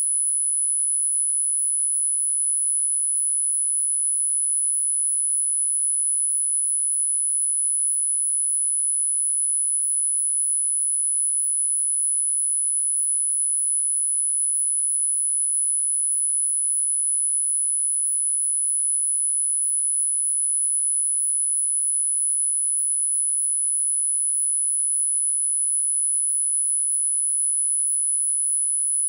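A single electronically generated sine tone, held perfectly steady in pitch and loudness. It is high-pitched, the frequency tone of a subliminal listening track.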